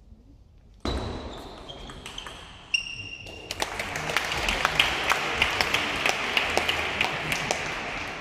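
Table tennis ball impacts during a rally, a sudden hit followed by several short ringing pings, then audience applause from about three and a half seconds in, fading toward the end.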